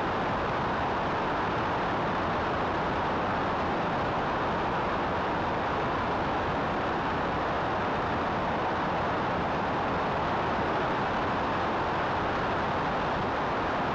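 Steady rush of wind and engine-propeller noise from a Cessna 172 in level flight, heard through a camera mounted outside on the wing; an even, unchanging roar.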